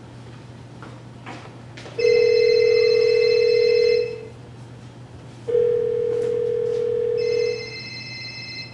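Telephone ringing sound effect played over a theatre sound system: two rings about a second and a half apart, each a steady tone with a higher bell-like trill.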